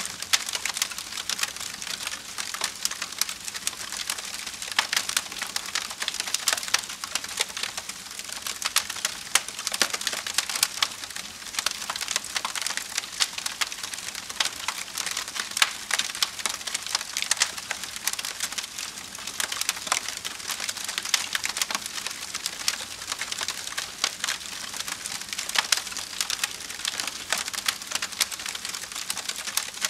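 Wood campfire burning with dense crackling and sharp pops over a steady hiss of flames.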